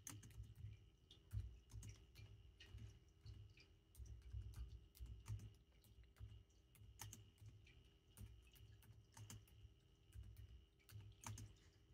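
Faint, irregular tapping and clicking of fingers typing on a smartphone touchscreen, with soft bumps from the phone being handled.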